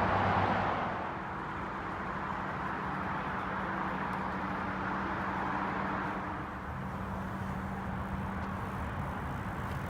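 Steady road-traffic noise: a continuous wash of passing cars with a low engine hum. It is louder for about the first second, then settles.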